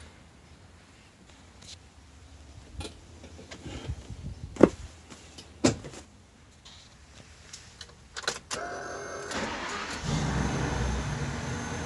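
Knocks and clicks of handling inside a motorhome, then near the end the Thor ACE motorhome's engine is started: a short whir of cranking, then the engine catches and settles into a steady idle.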